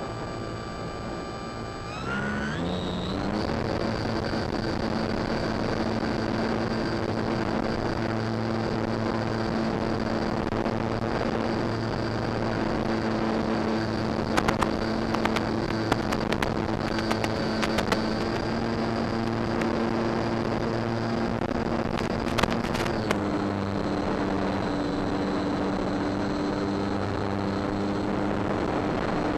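Electric motor and propeller of a Durafly Tundra RC plane, heard from on board. A steady whine rises sharply in pitch about two seconds in as the throttle is opened for takeoff, then holds steady under wind rush. There are scattered clicks, and the pitch drops slightly late on.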